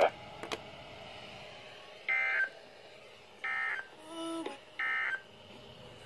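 Weather radio sounding the Emergency Alert System end-of-message code: three short bursts of warbling digital data tones, about a second and a half apart, marking the end of the warning. A fainter pitched tone sounds briefly between the second and third bursts.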